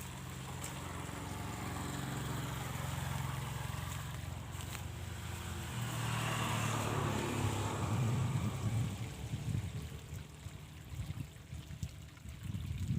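An engine running steadily, growing louder to a peak a little past the middle and then fading away, as a passing motor vehicle would. Irregular low rumbles follow near the end.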